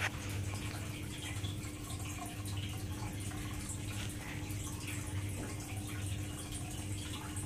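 Water trickling and bubbling in a goldfish aquarium, stirred by its internal filter, over a steady low hum from the pump.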